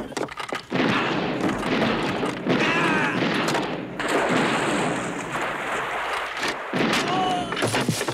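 Action-film fight soundtrack: gunshots and blows over a dense, loud din, with men yelling twice, once about a third of the way in and again near the end.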